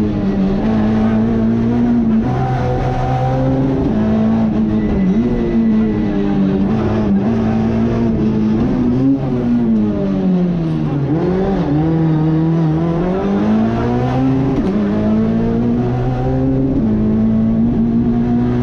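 Citroën C2 R2 rally car's engine, heard from inside the cockpit, running hard at high revs. The pitch drops briefly twice in the first few seconds, as at gear changes. About halfway through the revs fall away to their lowest, then climb steadily back up.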